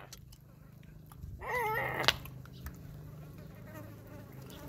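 A fly buzzing steadily close by. About one and a half seconds in there is a short voice sound, and just after it a sharp click.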